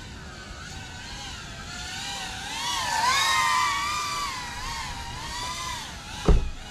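FPV quadcopter's brushless motors and propellers whining, the pitch rising and falling with throttle, loudest about halfway through. A brief low thump near the end.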